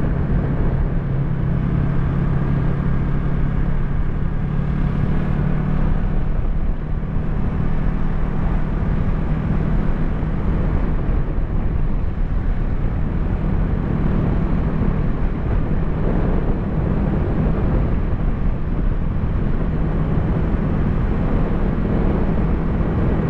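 Yamaha YZF-R3's parallel-twin engine running at a steady cruise, with its low hum holding an even pitch. Wind rushes over the microphone throughout.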